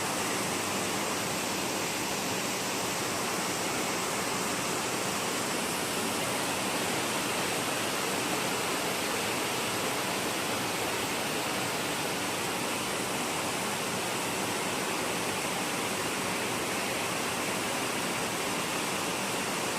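Heavy rain pouring down, a steady, even hiss that neither rises nor falls.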